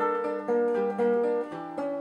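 Acoustic guitar playing on alone as the instrumental close of a sung bard song, plucked notes and chords changing about every half second.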